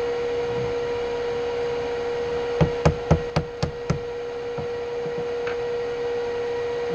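A shop machine's steady hum, with a quick run of about six sharp knocks about two and a half seconds in.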